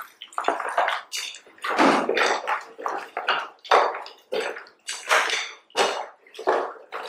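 Hands squeezing and kneading pounded palm fruit pulp in cold water in a plastic basin: wet squelching and sloshing in quick strokes about twice a second, pressing the palm fruit juice out of the pulp for banga soup.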